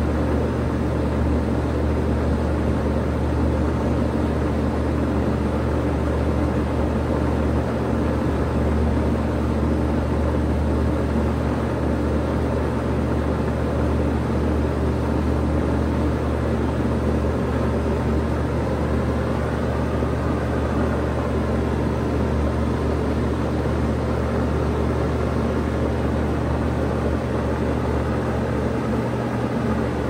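2002 Bard 3-ton wall-mounted heat pump running in heat mode: a steady low hum from the compressor under the even air noise of its fan.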